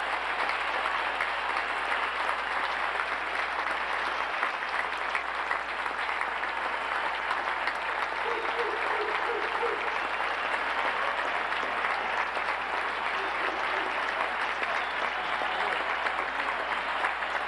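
Large stadium crowd applauding steadily and at length, a dense even wash of clapping that neither builds nor fades.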